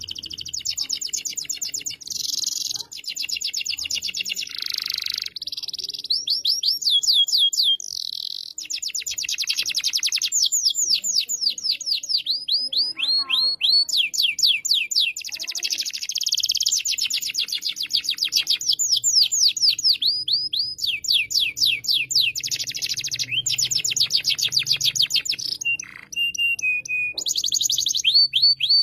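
Domestic canary singing a long, loud song of rapid trills, each phrase a fast run of repeated sweeping notes, one phrase following another with only brief breaks.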